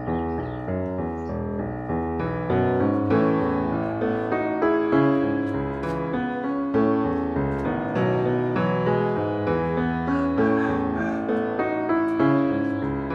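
Background piano music: a steady run of notes on an electric or acoustic piano.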